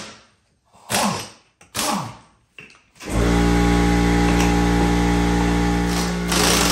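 Two brief sounds falling in pitch, then about three seconds in a motor starts and runs with a loud, steady hum.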